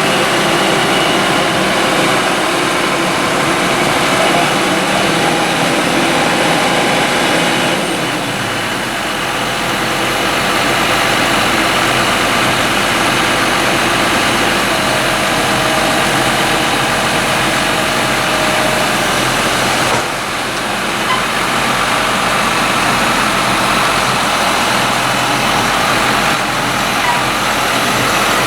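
Heavy farm machinery engines running steadily during the maize silage harvest. The sound changes abruptly about 8 and 20 seconds in, where one shot of the machinery gives way to another.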